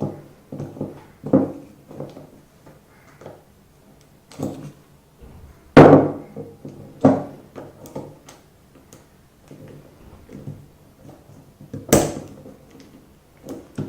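Scattered clicks and knocks of a screwdriver and small metal parts as an LPG cylinder regulator's coupling is worked apart to free its interlock balls. There are two sharper knocks, about six seconds in and near the end.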